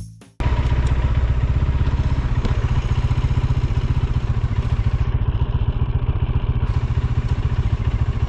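Motorcycle engine running steadily while riding, a fast even low throb with road and wind noise over it, cutting in abruptly just after the start.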